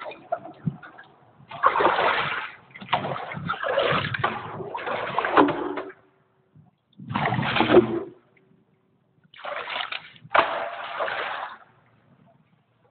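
Water splashing and sloshing around rubber hip-waders, in several bursts a second or so long with short pauses between.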